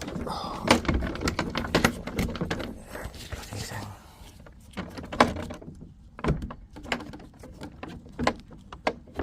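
A run of sharp knocks, clunks and rattles, dense for the first two seconds or so, then single knocks every second or so.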